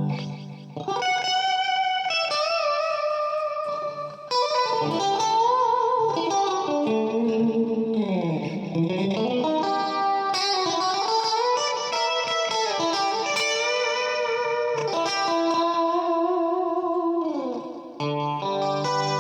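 Electric guitar played through effects pedals: sustained single-note lead lines with vibrato, a slide down and back up in pitch about halfway through, and lower chords coming back in near the end.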